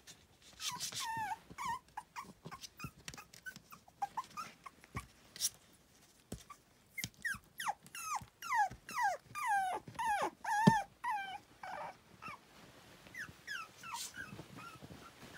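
Toy poodle puppy whining in short, high, falling whimpers, a few about a second in and then a quick run of them in the middle, as it tries to get out of its box.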